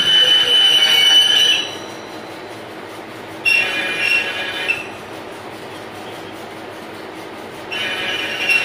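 Metal lathe running with a steady hum, its cutting tool squealing high against the metal workpiece three times, a second or two each, as the cut is fed in.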